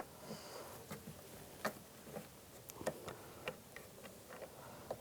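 Faint, scattered small clicks and taps of a plastic door trim cover being handled and lined up against the door panel.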